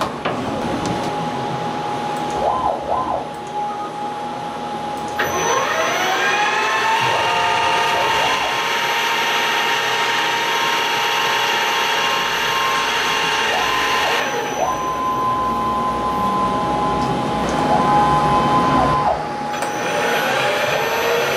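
CNC milling machine: stepper motors whine in short pitch steps as the axes move, then the spindle spins up with a rising whine about five seconds in and runs steadily as the end mill cuts the aluminium block under coolant. The sound changes again near the end.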